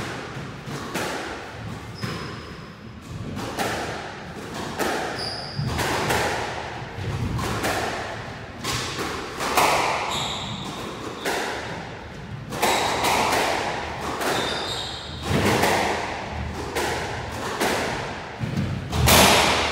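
Squash rally: a squash ball struck by rackets and hitting the court walls, repeated sharp thuds roughly one or two a second with reverberation, the loudest near the end. A few short, high squeaks of shoes on the wooden floor come between the strikes.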